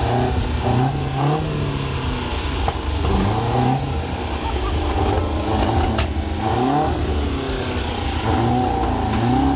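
Car engine revving over and over, its pitch rising and falling again and again.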